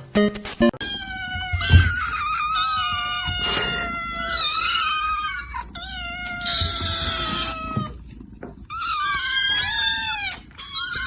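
A cat yowling in several long, drawn-out, wavering calls with short pauses between them.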